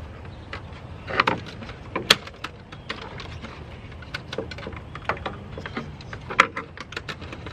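Scattered clicks and knocks of hands handling the plastic parts and clips at the front of a Jeep Renegade's engine bay, with sharper knocks about a second in, around two seconds in and past six seconds, over a steady low hum.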